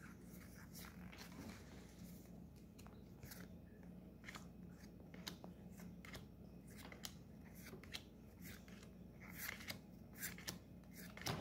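Faint, irregular clicks and light scrapes of Pokémon trading cards being handled, each card slid off the stack and looked at in turn, over a soft steady hum.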